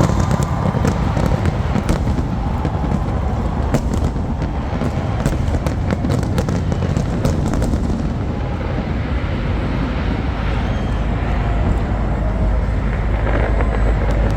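Fireworks going off: a rapid run of sharp cracks and bangs over a steady deep rumble, thinning out about halfway through.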